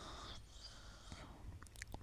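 Faint breathing of a sleeper, with a thin, high whistle in the breath that fades out about half a second in. A fainter second breath follows, then a few soft mouth clicks near the end.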